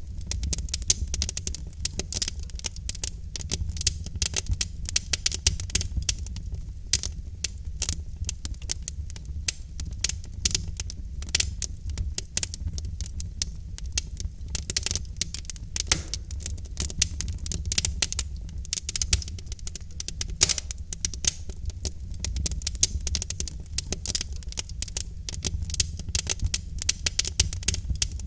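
Wood fire in a fireplace crackling and popping, with dense irregular snaps over a steady low rumble of the burning logs.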